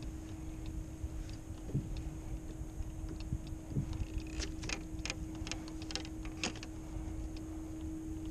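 Sharp light clicks and taps of fishing gear being handled in a kayak, coming thickest in a quick cluster between about four and six and a half seconds in, over a steady low hum and a low rumble of wind and water.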